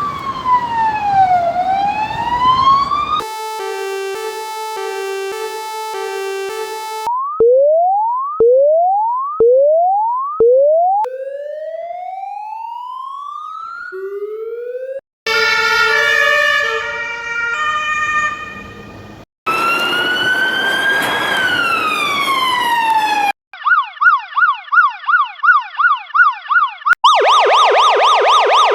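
A run of police siren sound effects, each a few seconds long and cut off abruptly for the next. First a slow wail falling then rising, then a two-tone hi-lo, then four short rising whoops. After that come a slow rising sweep, a jumble of steady tones, another slow rise and fall, and finally a fast warbling yelp that quickens into a rapid trill near the end.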